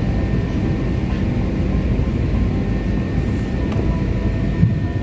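Steady low rumble of an Airbus A380's cabin while the aircraft stands on the apron, with a faint steady high whine over it.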